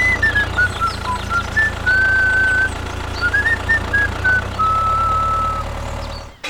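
A steady low engine hum with a single wavering, whistle-like melody over it, both fading away just before the end.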